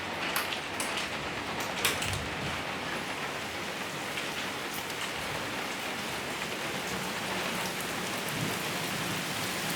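Heavy rain falling steadily during a thunderstorm, an even hiss with a few sharp drips or taps in the first two seconds.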